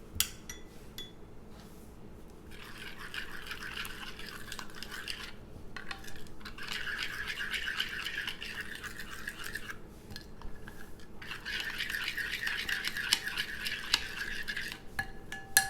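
A utensil scraping round a bowl, stirring a mixture of ground flaxseed and niger seed with berbere and melted butter, in three long bouts of rapid scraping with short pauses between them.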